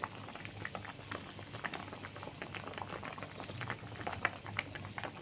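Pot of fish soup at a boil, bubbling with many small irregular pops.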